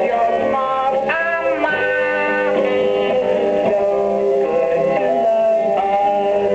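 A song: a singing voice over plucked guitar accompaniment, presented as the ventriloquist figure singing.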